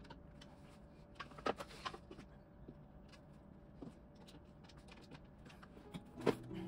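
Scattered light knocks, clicks and rustles of white flat-pack furniture panels, fittings and the paper instruction sheet being handled. A cluster of louder knocks comes about one and a half seconds in, and another near the end.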